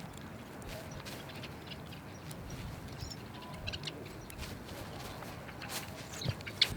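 Faint birds chirping in the background, with a few light, scattered clicks.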